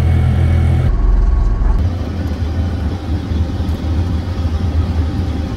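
Motorcycle rickshaw (Qingqi) engine running under way, heard from inside the passenger cabin: a steady low hum with road noise. The sound changes abruptly about a second in.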